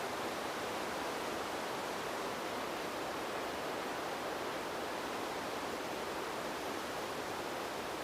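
Steady wind, an even rushing hiss that holds at one level without gusts.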